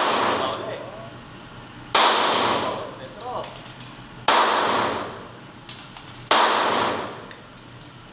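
Glock 19 Gen 5 9mm pistol fired three times, one shot about every two seconds, each report trailing off in a long echo.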